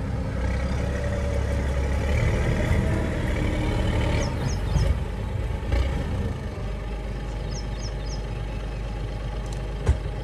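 Sherp N 1200 amphibious ATV's diesel engine working under load as the machine climbs a steep sand bank. The engine note is heaviest in the first few seconds and eases off after about six seconds.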